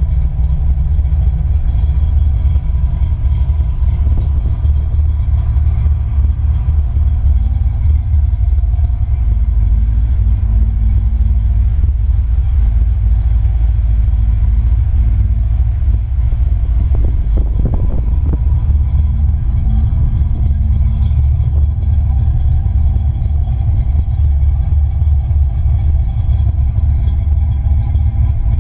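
Ford 5.0 L (302 cu in) small-block V8 of a 1988 Mustang GT idling steadily through Mac Pro dump mufflers, a loud, low, even exhaust note with no revving.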